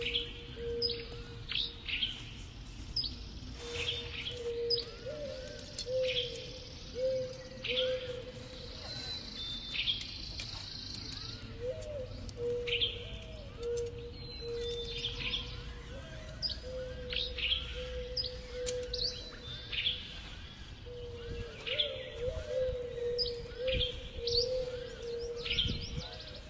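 Wild birds chirping and calling in woodland: many short, quick, falling chirps repeated over and over, with a steady low tone running underneath.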